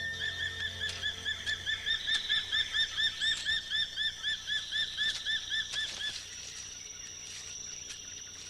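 A bird calling in a fast run of short whistled notes, about four a second, that stops about six seconds in. A steady high-pitched whine carries on after it.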